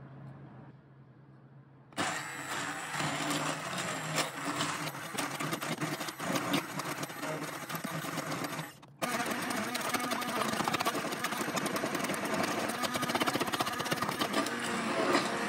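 Electric stick blender starting up about two seconds in and running as it purées a thick tomato, onion and cashew sauce in a stainless saucepan, the blade churning through the chunky mixture. It cuts out for a moment just before nine seconds, then runs again.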